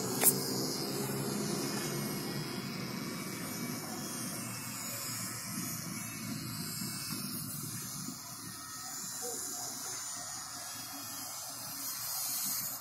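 Steady outdoor ambience: a hiss with a low rumble underneath that eases off after about four seconds, and a single sharp click just after the start.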